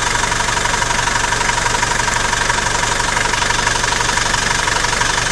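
Range Rover's engine idling steadily, with a steady thin tone over the low running.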